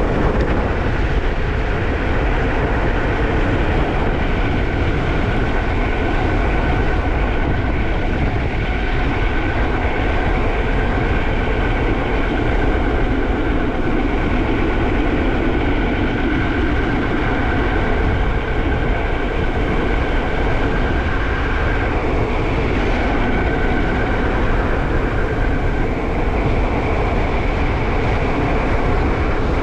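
Loud, steady wind rush and road rumble from an e-bike coasting down a steep hill, with a thin, steady, high brake squeal held from about six seconds in until a few seconds before the end, breaking off briefly once along the way.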